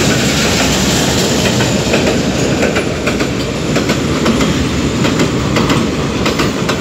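Container freight train's flatcars rolling past close by: a loud steady rumble of wheels on rails, with the clickety-clack of wheels over rail joints coming in more often in the second half.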